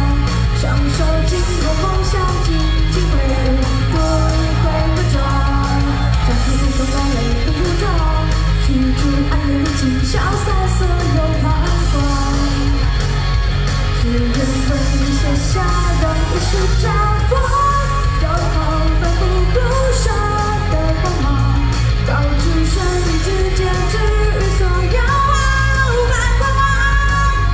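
A female singer sings a pop-rock song live into a handheld microphone over loud backing music with a steady beat.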